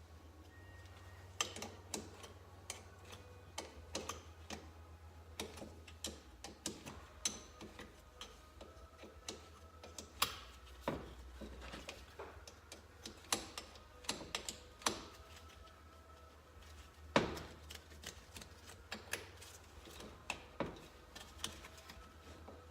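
Irregular light clicks and taps of hand tools and small metal engine parts being handled during disassembly, with one louder knock about seventeen seconds in. A faint low hum runs underneath.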